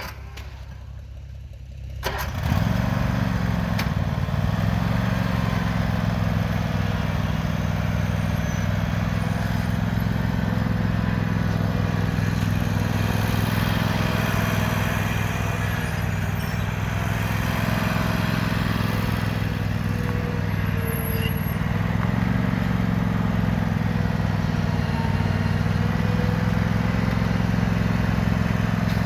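Cub Cadet RTZS-42 zero-turn riding mower's engine starting about two seconds in, then running steadily at an even speed.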